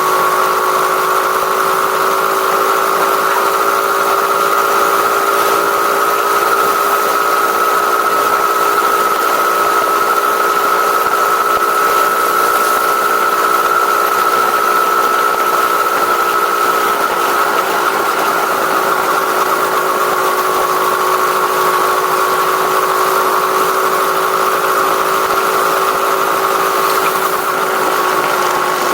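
A vehicle engine with a stock exhaust running steadily at an even speed, its pitch holding level and dropping slightly about two-thirds of the way through.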